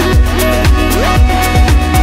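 Electronic dance music with a steady beat: a deep kick drum about twice a second under ticking hi-hats and held synth notes.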